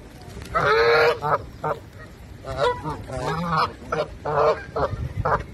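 Canada geese honking while they feed, with a long, loud call about a second in, followed by a run of shorter honks.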